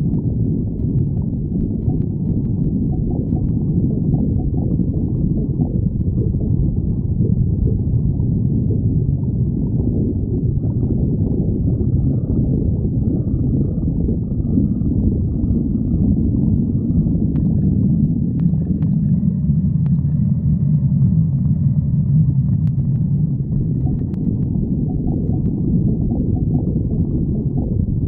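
A person's stomach growling in one long, continuous low rumble.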